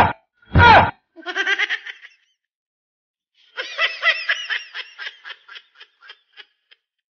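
Two loud short cries, then laughter: a brief giggle about a second in, and a longer laugh from about three and a half seconds in that breaks into shorter and shorter pulses and fades away.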